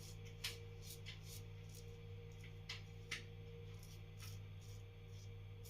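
Parker 65R safety razor with an Astra green blade scraping through lathered stubble in short strokes, about two a second, a few of them louder, over a faint steady hum.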